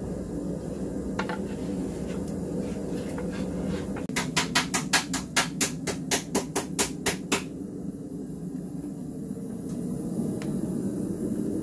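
A quick, even run of about fifteen sharp knocks, some four or five a second, starting about four seconds in and lasting about three seconds, over a steady low hum.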